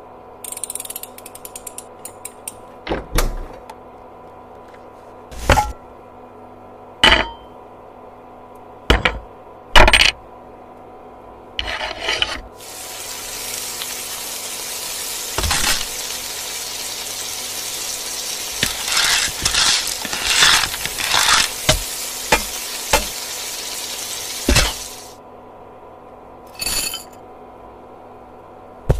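A safe's combination dial turned with rapid small ratcheting clicks, followed by several sharp separate clicks. From about twelve seconds in, a steady sizzle like frying in a pan lasts about twelve seconds, with clinks of small hard pieces over it.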